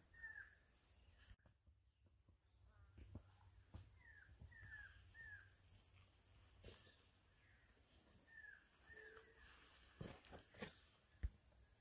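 Faint tropical forest ambience: a steady high-pitched insect drone with rhythmic chirps, and a bird giving short falling whistled notes, often two or three in quick succession. A few faint knocks near the end.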